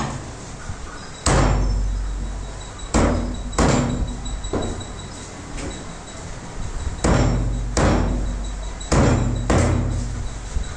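Cleaver chopping chicken on a wooden log chopping block: about eight heavy chops, irregularly spaced, several in quick pairs.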